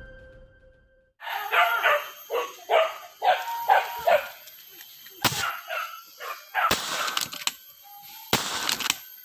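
Hunting dogs barking in a quick, even run of about eight barks, two or three a second, followed by a few louder, rough noisy bursts in the second half, with a sharp click among them.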